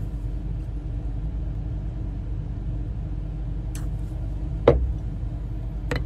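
A metal spoon stirring pink colorant into liquid soft-bait plastic in a glass measuring cup, with a faint click and then one sharp knock near the end, over a steady low rumble from something running in the shop.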